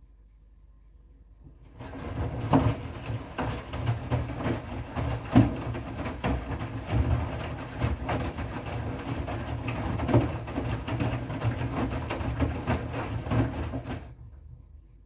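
Front-loading washing machine in its wash cycle: the drum starts turning about two seconds in, its motor humming as the wet laundry tumbles inside with irregular thuds and sloshing. The drum stops again near the end.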